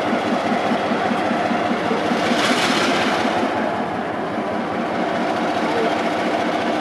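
EMD 12-567C twelve-cylinder two-stroke diesel engine of a 1956 NOHAB-EMD SJ T41 locomotive running with a steady, fast pulsing beat. A brief hiss rises over it about two and a half seconds in.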